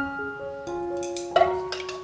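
Background music with held melodic notes. From about halfway through, rapid, irregular clicking joins it: chopsticks beating eggs against a stainless steel bowl.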